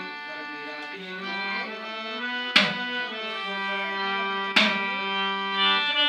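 Live music with long held melodic notes and two sharp percussion strikes, the first about two and a half seconds in and the second two seconds later.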